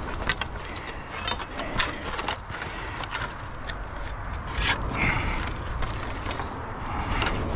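Dry brush and dead twigs crackling and snapping irregularly as someone pushes and steps through a thicket, over a steady low rumble.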